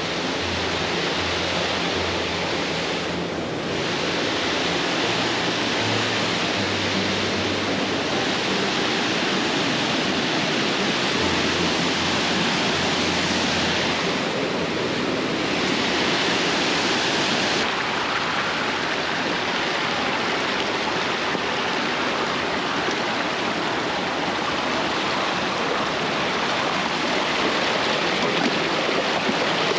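Steady rush of fast-flowing stream water, an even noise with no breaks.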